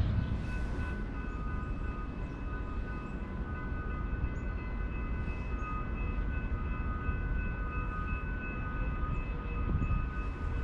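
Long Island Rail Road Kawasaki M9 electric train approaching from a distance: several steady high tones hold throughout over a low rumble.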